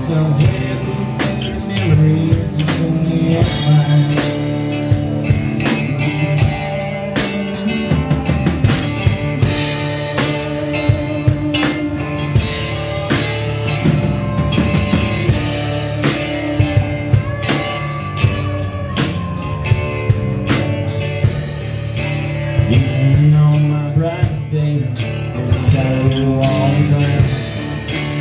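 Live band playing a song on acoustic guitar, electric guitar and a drum kit, the drums keeping a steady beat under sustained guitar chords, with a few bending notes about two thirds of the way in.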